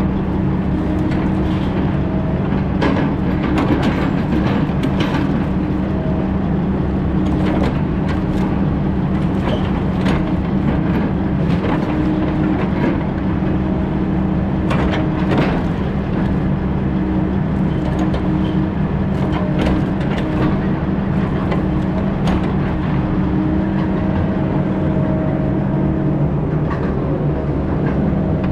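Heavy logging machine's diesel engine running steadily under load, with scattered knocks and clanks.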